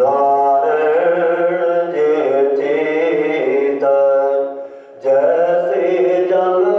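A man reciting Sikh scripture (Gurbani path) in a sustained chanting tone, with a short pause for breath near the middle.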